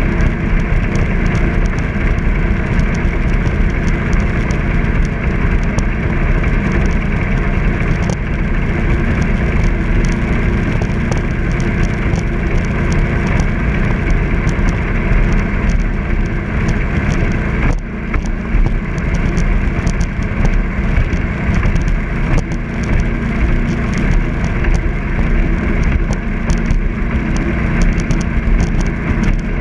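Jet boat running steadily at an easy cruise: a constant engine tone under a rushing noise of water and wind. The level dips briefly about two-thirds of the way through.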